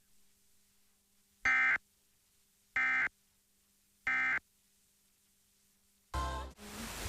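EAS SAME end-of-message code: three short bursts of screechy digital data tone, each about a third of a second long and about 1.3 s apart, marking the end of the alert. A faint steady hum sits between the bursts. Near the end a brief burst gives way to a steady hiss of static.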